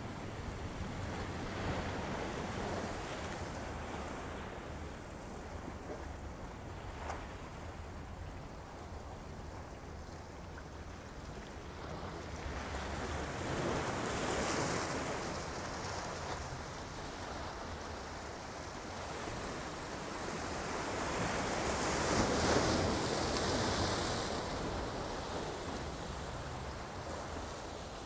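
Small ocean waves lapping and washing over shoreline rocks, a steady surf that swells louder twice, once around the middle and again a little later.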